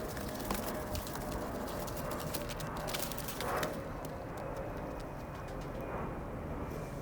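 Pigeons moving about in a loft: a run of quick clicks and taps over the first few seconds, then quieter.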